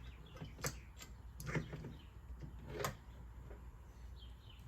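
A few light clicks and taps of small metal valve parts and hand tools being handled, four or so spread over a few seconds, over a low steady background hum.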